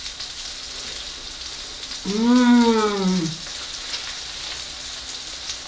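Steak and shrimp sizzling on a hot hibachi cooking stone, a steady crackling hiss. About two seconds in, a woman gives a drawn-out hum of about a second, rising then falling in pitch.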